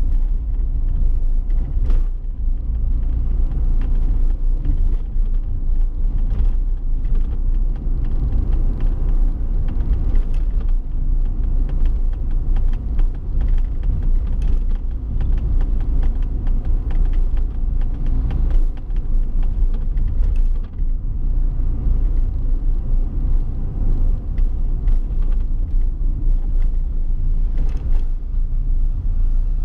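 A motor vehicle under way on a road: steady low engine and road noise, with many small knocks and rattles throughout.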